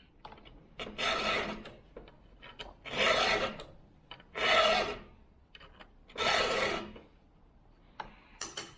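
Hand file being stroked across the cutters of an Archer ripping chain while sharpening. There are four strokes, each under a second long and about one and a half to two seconds apart, with light clicks between them as the file is set back on the tooth.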